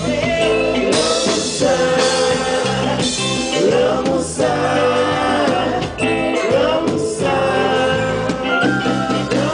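Live kompa band playing with a male and a female singer singing lead into microphones over bass, drums and keyboards.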